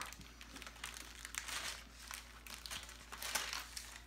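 Plastic zip-top bag and candy packet crinkling irregularly as fingers rummage inside and pull out a sour candy straw.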